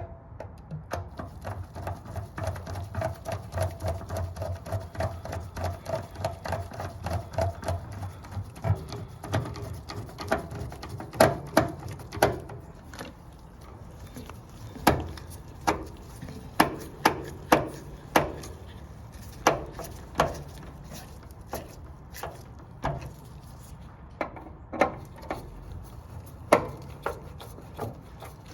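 Sharp metal clicks and knocks from a water heater burner assembly being worked into the combustion chamber. Quick, fairly regular clicks come over a low hum for the first several seconds, then louder clicks come singly and in pairs.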